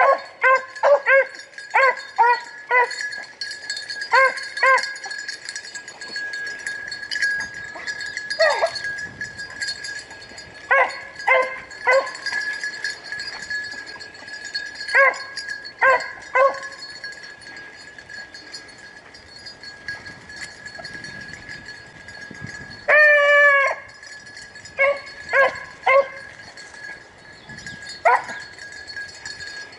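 Rabbit hounds baying on a chase: clusters of short, pitched barks come and go, with one longer, wavering howl about 23 seconds in.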